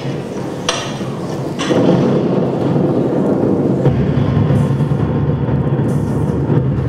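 Dark, rumbling stage soundtrack played over a theatre's speakers: a couple of sharp hits, then a dense low rumble that swells about two seconds in and deepens about four seconds in.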